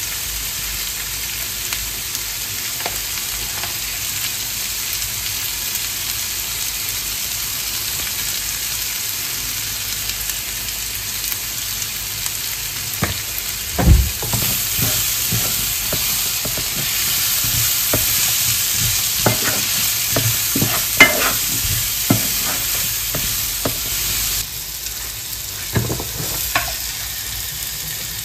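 Food frying in a pan with a steady sizzling hiss. From about halfway, a utensil stirs and knocks against the pan, with the sharpest knocks about 14 and 21 seconds in; the sizzle is softer for the last few seconds.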